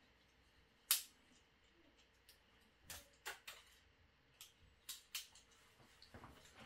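Scattered light clicks and taps of objects being handled, the sharpest about a second in, then a few more around the middle and near the end, over faint room tone.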